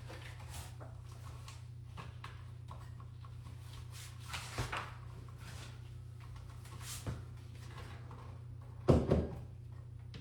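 A few scattered knocks and bumps, the loudest a double bump about nine seconds in, over a steady low hum.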